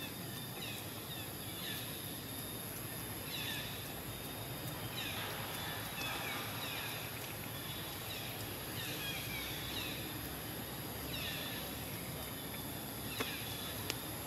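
Outdoor forest ambience: a steady hiss with a constant high-pitched whine, and short falling chirps repeating in small groups, with a few sharp clicks near the end.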